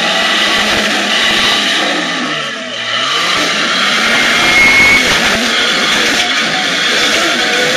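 Lifted Jeep Cherokee's engine revving hard under load as it climbs a steep rock ledge. The revs rise and fall, with a short dip about two and a half seconds in. From about six seconds in, the sound grows rougher as the wheels spin on the rock and throw up grit while the Jeep tips over sideways.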